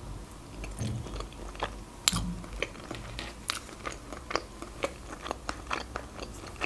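Close-up chewing of a mouthful of pasta in cream sauce with hearts: a string of irregular small mouth clicks and smacks.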